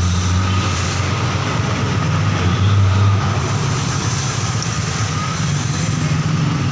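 Steady low motor rumble with a faint steady whine above it.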